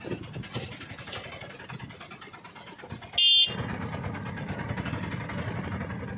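Auto-rickshaw's small engine running on the move, with a short, loud, high-pitched horn blast a little after three seconds in.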